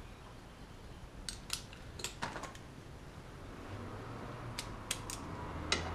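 Scattered faint clicks and light taps of small fasteners and hand tools being handled at the motorcycle's rear fairing, in two short clusters. A faint low hum comes in a little past halfway.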